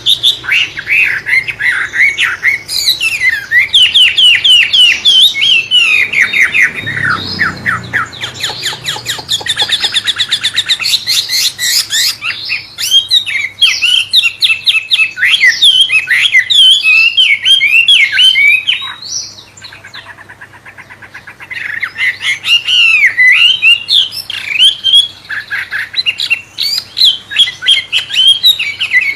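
A wambe songbird singing a long, rapid, varied song of whistled notes and buzzy rattling trills, shama-like in style, with a short pause about two-thirds of the way through.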